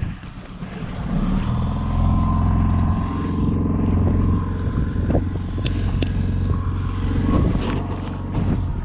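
Mercury outboard motor coming up to speed about a second in, then running steadily, with a few light knocks against the boat.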